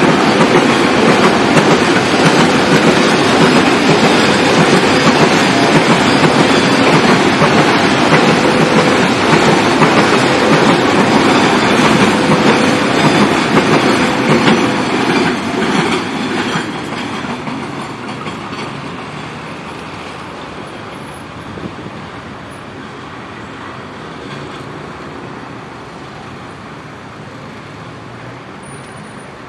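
Freight train of rail fuel tank wagons rolling past, the wheels clattering over the rail joints. The sound is loud for about the first half, then fades steadily as the train draws away.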